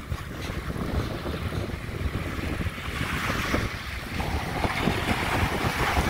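Wind buffeting the microphone over small waves washing up onto a sandy beach; the hiss of the surf grows louder about halfway through.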